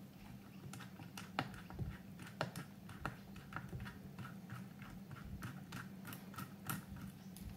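Faint, irregular small clicks, a few a second, of a precision screwdriver working a tiny screw in a Hornby 9F model locomotive chassis to free the motor brackets.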